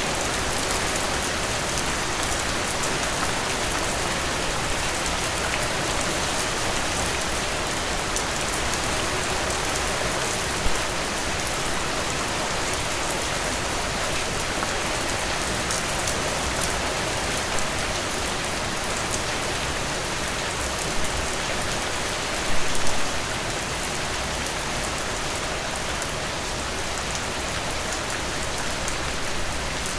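Heavy rain falling steadily on surfaces, an even hiss of many drops, with a few brief louder hits, the biggest cluster about two-thirds of the way through.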